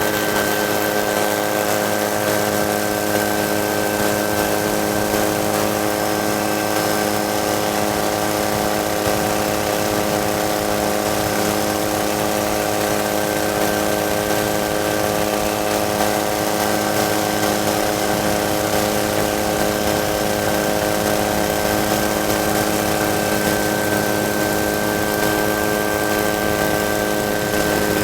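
Engine running at a steady, unchanging speed: a constant hum of several held tones with no revving.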